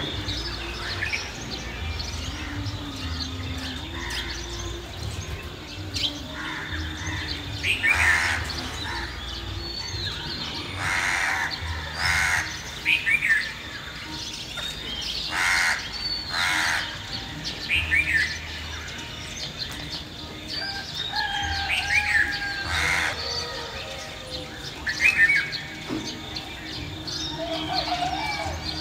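Village bird chorus: small birds chirping in short falling notes throughout, with crows cawing loudly now and then over a low steady rumble.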